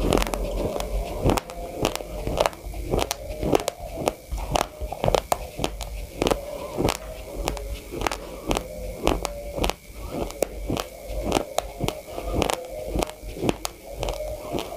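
Uncooked white rice grains crunched between the teeth while chewing: a rapid, irregular run of sharp crunches, several a second.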